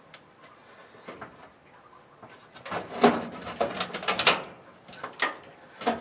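A few sharp knocks and clatters of sheet-metal furnace parts being handled and seated inside the furnace cabinet, bunched together in the middle and then two single knocks near the end.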